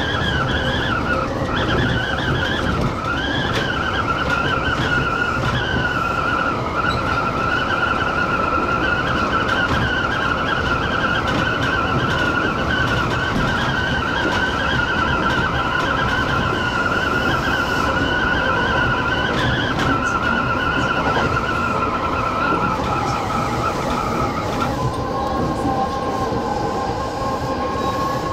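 Kintetsu express train's steel wheels squealing against the rail on a curve, a loud high wavering tone over the steady running rumble of the train. About 25 seconds in the squeal drops to a lower, steadier tone.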